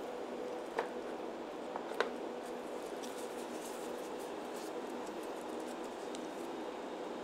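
Steady low room hum with two light clicks about one and two seconds in, then faint dry rustling as latex-gloved hands rub together.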